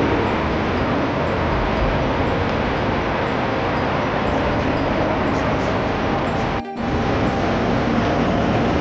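Steady rumbling noise of a moving vehicle, with a brief break about two-thirds of the way through.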